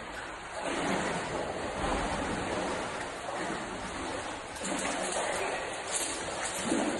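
Steady rush of running water, with a few brief louder swells in the second half.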